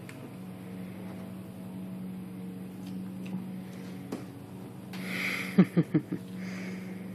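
Young puppies: four quick squeaks, each falling in pitch, in a tight run about five and a half seconds in, over a steady low hum.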